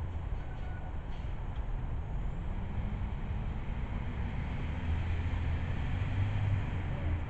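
A motor vehicle passing nearby: a low engine hum and rumble that builds through the second half and is loudest near the end.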